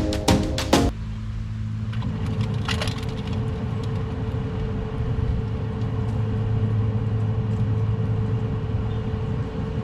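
A few beats of music end about a second in, giving way to a steady mechanical hum with a constant low drone and a thin steady tone above it.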